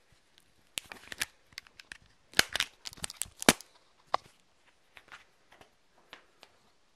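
Handling noise: an irregular run of sharp clicks, rustles and light knocks as the hand-held camera and the things on the table are moved about, busiest and loudest in the middle.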